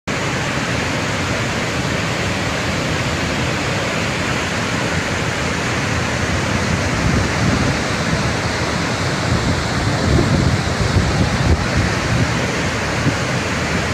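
Steady rushing of fast-flowing floodwater, a loud even roar of water with a rumble in the low end that grows a little stronger about halfway through.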